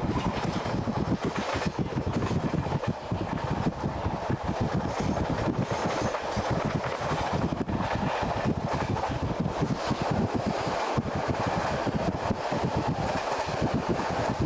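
Steady rumble and rush of a passenger train running at speed, heard from on board.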